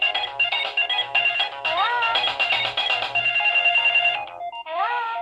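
Mobile phone ringtone: a synthesized melody of quick notes with a rising swoop about every three seconds. It breaks off briefly a little after four seconds in and again right at the end.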